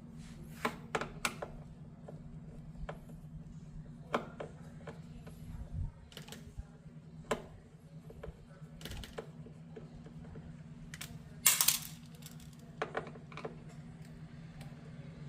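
Scattered small metallic clicks and taps of door hardware and screws being handled, with a brief louder rasp about eleven and a half seconds in. A low steady hum runs underneath.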